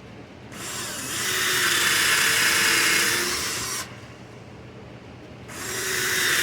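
Power drill with a 3/16-inch bit boring holes through plywood: a harsh hiss that builds over about a second and runs for about three, stops, then starts again near the end for the next hole.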